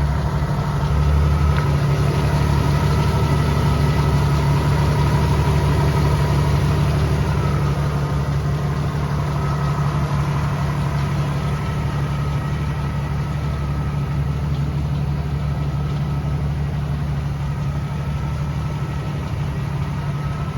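Fuel-injected 4.2-litre inline-six engine of a 1983 Jeep CJ7 idling steadily.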